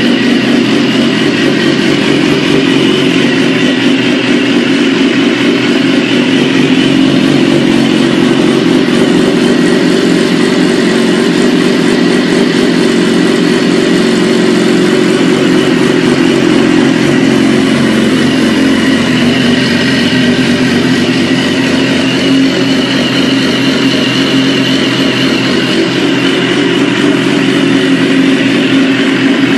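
BMW S1000RR sport bike's inline-four engine idling steadily, heard at the exhaust. Its engine speed drifts slightly up and down a couple of times.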